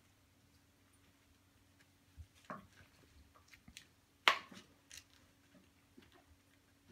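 Scattered light clicks and taps over a faint steady hum, the loudest a single sharp click about four seconds in.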